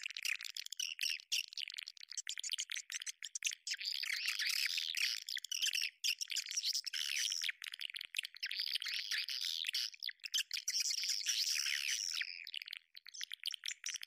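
Swiftlets twittering in a dense flock: many fast, overlapping high chirps and trills, with brief lulls about six seconds in and again near the end. It is a swiftlet lure call (suara tarik walet), the kind played at swiftlet houses to draw the birds in.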